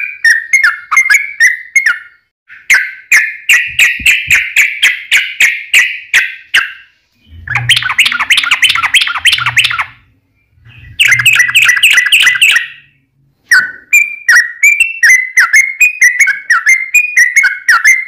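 Yellow-vented bulbul (trucukan) in a long, excited fighting-style song. Quick clicking whistled notes come in runs, broken by short pauses, and the runs in the middle turn into faster rattles.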